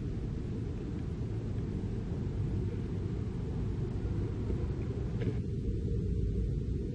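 Steady low rumble with a thin hiss above it and a short click about five seconds in; no engine note stands out.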